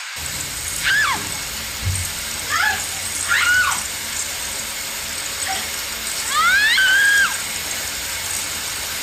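A series of short animal cries that slide up and down in pitch, about six of them, the longest and loudest near the end, over a steady low hum and hiss.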